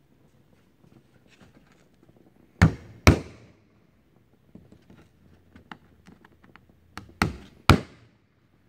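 Hammer driving small tacks into a wooden planking patch on a canoe hull. Two sharp blows about half a second apart, then a few seconds later a light tap and two more hard blows, with faint small clicks in between.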